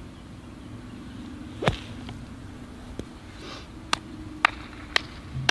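Golf bunker shot: the club strikes the sand about a second and a half in with one sharp hit. From about four seconds in, sharp clicks follow about twice a second over a faint steady hum.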